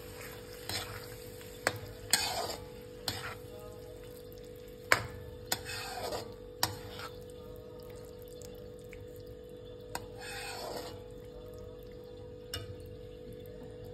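Steel spoon stirring a thick mushroom curry gravy in a steel kadhai, with wet scrapes along the pan and occasional sharp clinks of spoon on metal.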